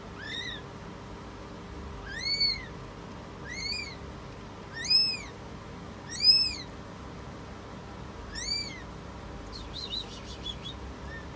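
Newborn kitten mewing: six short, high-pitched cries, each rising and falling in pitch, a second or two apart.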